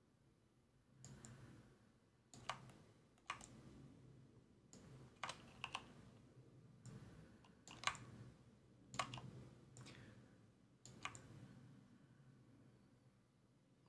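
Faint, irregular clicks of a computer keyboard and mouse, about a dozen scattered through the stretch, some in quick pairs.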